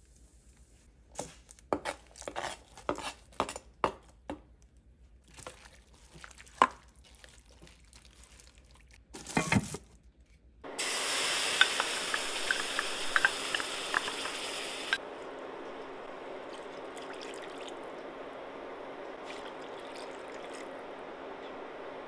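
Kitchen clicks and knocks of utensils and cookware being handled, then about ten seconds in a pan starts sizzling, a steady hiss with small crackling pops that settles lower after a few seconds.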